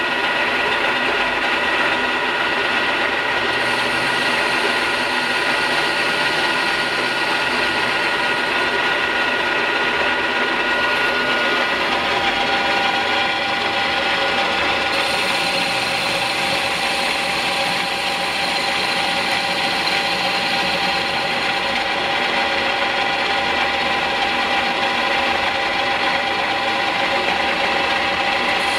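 E1N lathe converted to CNC running, its spindle turning a metal workpiece while the tool cuts it. The machine gives a steady whine made of several tones, which change pitch about halfway through as the feed changes.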